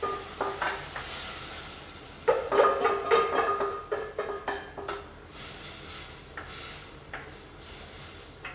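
Spoon knocking and scraping against a metal mixing bowl as minced abalone is tipped into a pot, the bowl ringing between strokes. Over the last few seconds a soft sizzle comes from the hot butter in the pot.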